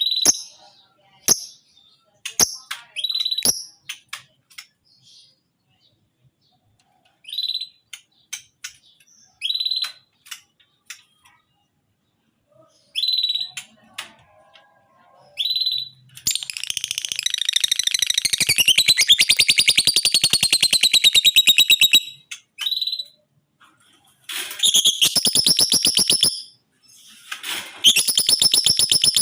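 Lovebird calling: sharp, high single chirps spaced a second or two apart, then from about halfway long bouts of fast rattling trills, its ngekek song, several seconds each with short breaks between them.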